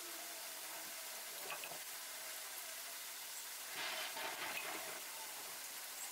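Steady hiss of background noise, with a brief scratchy rustle about four seconds in.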